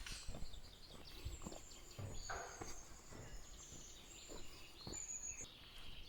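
Forest birds singing: thin, high whistled notes, some long and gently falling, with a sharper high note about five seconds in. Underneath, scattered soft crunches and thuds on the forest floor, a few to the second.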